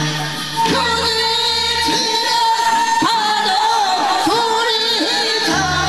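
Korean folk song (minyo) sung into microphones over a backing accompaniment. A long, wavering melody line is held, and a low bass in the accompaniment stops about two seconds in and returns near the end.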